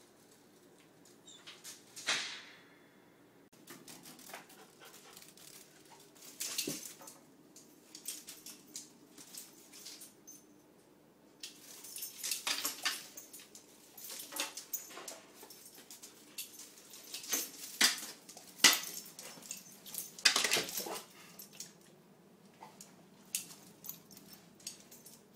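A German Shorthaired Pointer's claws clicking and scrabbling on a tile floor in irregular bursts as it lunges and turns, with a few sharper knocks.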